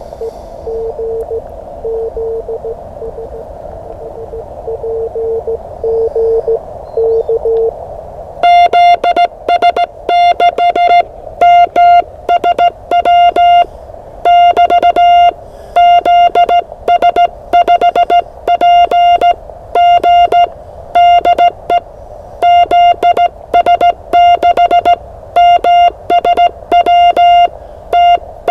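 Morse code over a ham radio transceiver. For the first eight seconds a fainter, lower-pitched CW signal is received through band hiss. About eight seconds in, a much louder, higher-pitched keyed tone takes over in dot-dash rhythm: the station's own sidetone as it sends in reply.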